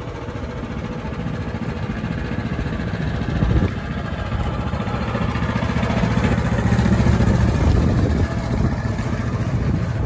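Small diesel engine of a miniature-railway locomotive running as it hauls passenger carriages, getting louder as the engine comes close. There is a single knock about three and a half seconds in.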